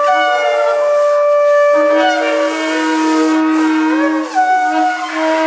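A group of shofars, ram's horns of different sizes, blown together: several long held blasts at different pitches overlap into a loud chord. A lower note comes in after about two seconds, and some pitches waver and bend later on.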